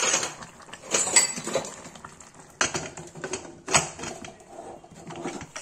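Aluminium pressure cooker lid being fitted onto the cooker: a handful of sharp metal clanks and scrapes against the rim as it is set and closed.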